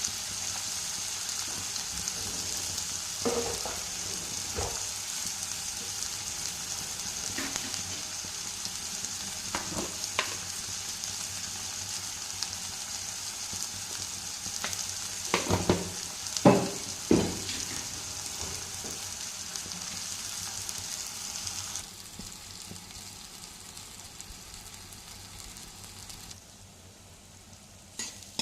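Tadka sizzling in hot oil in a pan, a steady frying hiss, with a spoon knocking and scraping against the pan several times, loudest past the middle. The sizzle fades about three-quarters of the way through.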